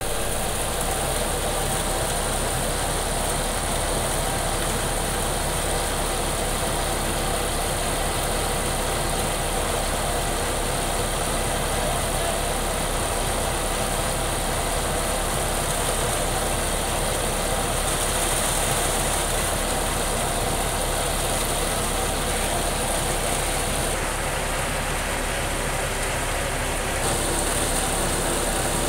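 John Deere tractor's diesel engine running steadily under load, driving a groundnut thresher while peanut plants are fed through it, with the thresher's drum and fan whirring. The machinery noise holds even throughout.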